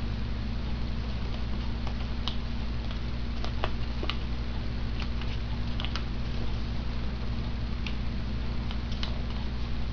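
A sheet of paper being folded and creased by hand, giving scattered light crackles and taps, over a steady low hum.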